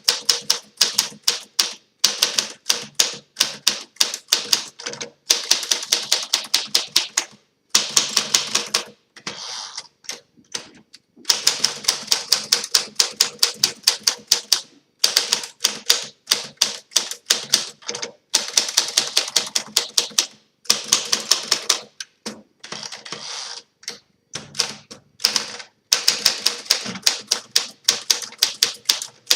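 1951 Smith Corona Silent manual portable typewriter being typed on: fast runs of key and typebar strikes against the new rubber platen, broken by short pauses.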